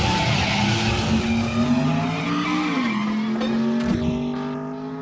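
Sports-car engine running hard with tyre-skid noise as the car speeds away. The engine note drops about two and a half seconds in, and the sound fades as the car recedes.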